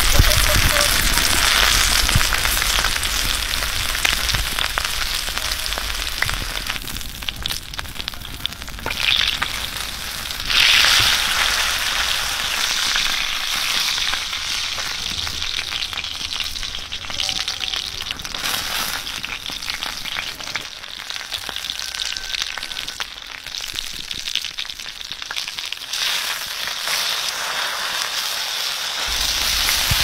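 Bone-in meat leg sizzling and spitting on a hot stone slab over a wood fire. The sizzle swells suddenly about ten seconds in, then gradually eases to a softer hiss.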